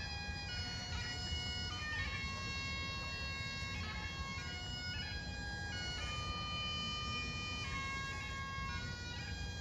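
Bagpipes playing a slow tune in long held notes that step from one pitch to the next, over a steady low rumble.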